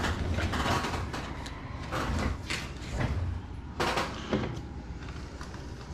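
Handling noises of a foam RC model airplane: plastic and foam parts rubbing, scraping and knocking in a string of short sounds as the nose cowl is fitted back on, with a sharper knock about four seconds in.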